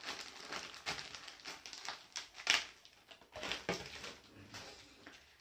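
Clear plastic bag crinkling as it is handled, an irregular run of crackles with the loudest about halfway through.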